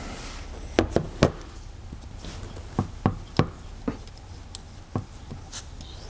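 A string of sharp clicks and knocks, the loudest two about a second in, from hands and a hex key working on the metal action of an FX Wildcat air rifle as its brass bleed plug is taken out.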